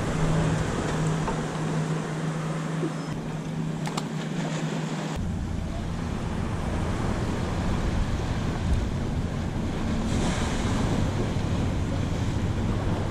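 Wind on the microphone and water lapping around a small boat, with a low steady hum underneath; the low rumble gets stronger suddenly about five seconds in.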